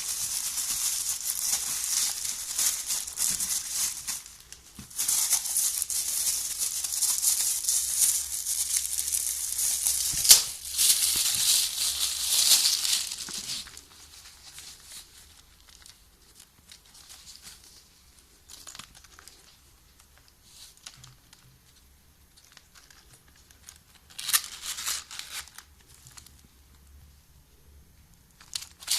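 Crinkling and rustling of something being handled, dense for about fourteen seconds. It then falls to scattered soft handling noises, with a short burst of crinkling near the end.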